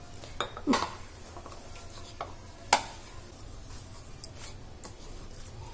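A hand mixing and kneading wheat flour dough in a bowl, as water is worked in: soft rubbing and squishing, with two sharp knocks against the bowl, about a second in and near three seconds.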